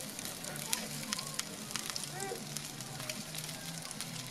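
Chicken wings sizzling on an oiled aluminium grill tray over a charcoal grill, a steady hiss with frequent small crackles and pops of spitting fat and marinade.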